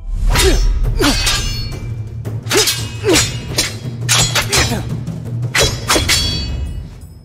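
A rapid series of about a dozen sharp scimitar strikes, each a crisp hit with a metallic ring, over a low, steady music drone.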